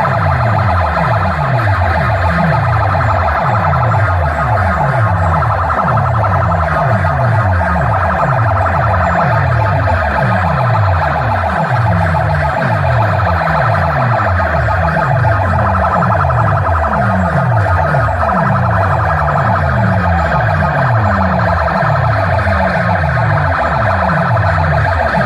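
Several DJ sound-system speaker stacks playing competition tracks at full volume: falling bass sweeps repeating in quick succession, under a steady siren-like midrange wail.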